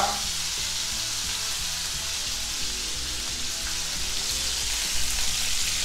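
Pork tenderloin sizzling steadily in hot oil in a frying pan as it is seared to seal in its juices.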